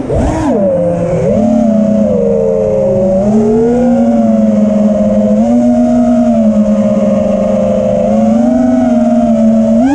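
Brushless motors and propellers of an Armattan Rooster FPV quadcopter with Cobra 2207 2450KV motors, heard from the camera on board. The whine swoops up and down with quick throttle changes in the first second, then holds a steady, loud buzz that rises and dips slightly as the quad circles low.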